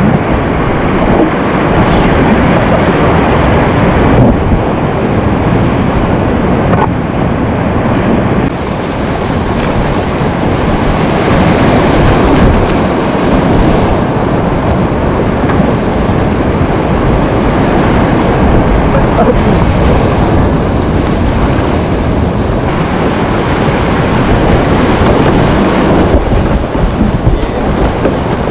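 Whitewater rapids of a steep creek rushing loudly and steadily, heard close up.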